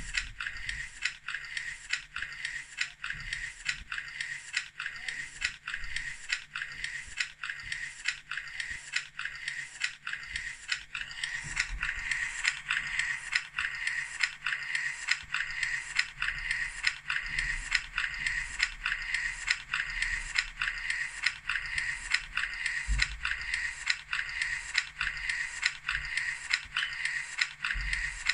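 Steady rhythmic mechanical clicking, about two clicks a second, like a ratchet or geared mechanism turning, over a whirring hum. It grows louder about eleven seconds in.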